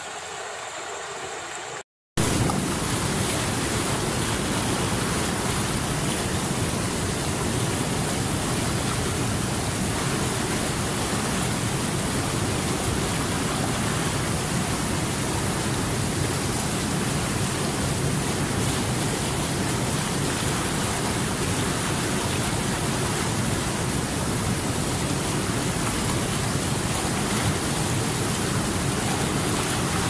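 Mountain stream rushing over boulders in foaming white-water rapids: a loud, steady rush of water. It cuts in after a brief gap about two seconds in, replacing the quieter flow of a calmer river.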